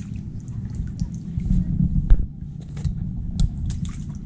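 Kayak paddling: water dripping and splashing off the paddle blades with scattered small knocks and clicks, one sharper knock about two seconds in, over a steady low rumble.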